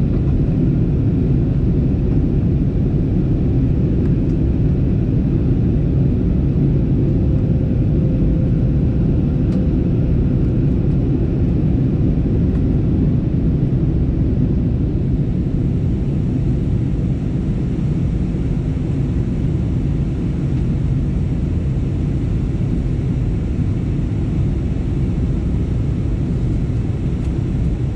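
Steady cabin noise inside an Airbus A321neo in flight: a deep, even rumble of engines and airflow, easing slightly about halfway through.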